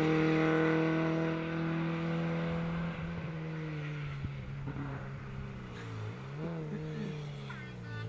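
Rally car engine running hard as the car pulls away, fading into the distance. Past the middle its revs fall and rise a few times.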